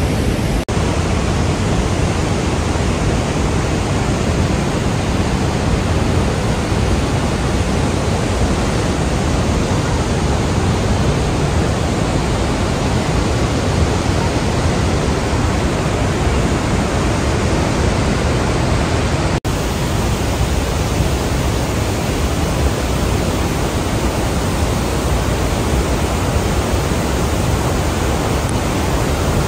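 Iguazú Falls' cascades heard close up: a loud, steady rush of falling water. It cuts out for an instant just under a second in and again about two-thirds of the way through.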